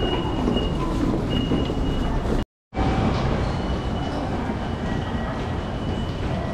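Kiha 85 series diesel railcar standing at a station platform, its engines idling in a steady rumble with a faint thin high whine coming and going. The sound cuts out completely for a moment about two and a half seconds in, then resumes unchanged.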